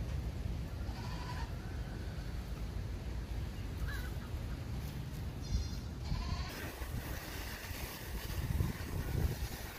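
Nigerian Dwarf goats bleating off in the pen, a short call about a second in and another around six seconds in, over a steady low rumble.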